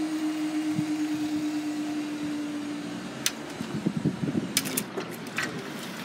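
Level crossing barrier mechanism humming steadily as the boom raises, stopping about three seconds in as the barrier reaches upright. A few sharp clicks follow.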